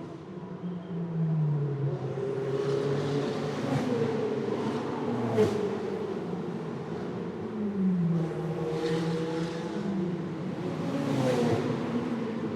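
Street traffic ambience: several vehicle engines running at once, their pitches gliding up and down, with swells as vehicles pass by every few seconds and a short knock about five seconds in.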